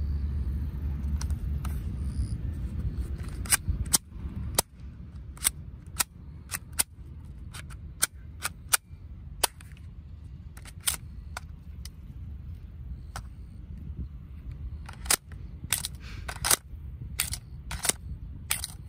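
Sharp plastic clicks and snaps from an Academy FNS-9 airsoft pistol's mechanism, about two dozen at uneven intervals, some in quick pairs. A low wind rumble on the microphone fades out about four seconds in.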